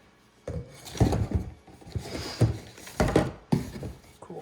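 Irregular knocks, clunks and rustling of objects being handled, with sharper strikes about a second in and several more through the rest.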